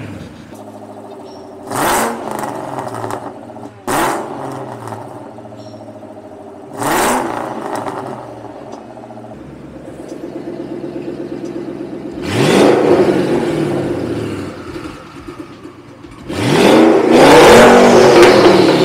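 A twin-turbo Coyote 5.0 V8 in a 2012 Mustang, running through long-tube headers and straight pipes, idles with three quick throttle blips. About nine seconds in the idle grows louder and deeper as the electric exhaust cutouts open, and two longer revs follow, the last the loudest.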